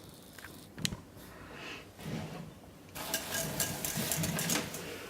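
A single click about a second in, then from about three seconds a dense crackling and rattling of close handling.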